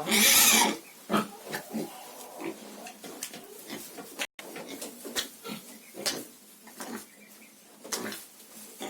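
A pig squeals loudly for under a second at the start, then grunts and snuffles quietly with scattered small noises while a syringe of dewormer is pushed into its mouth.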